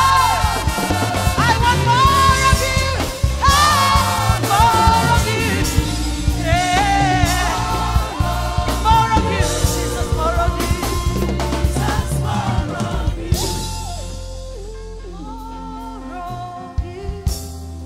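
Live gospel worship music: a woman sings into a microphone over a band with drum kit. About thirteen seconds in the drums drop out and the music turns quieter, with softer held chords under the voice.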